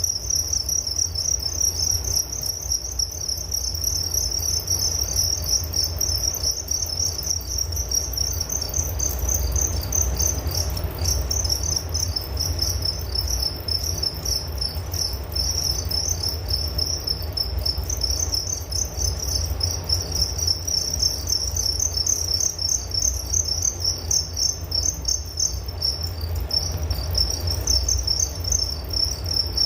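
Crickets chirping in a dense, continuous chorus of rapid pulsing trills at a high pitch, with a steady low rumble underneath.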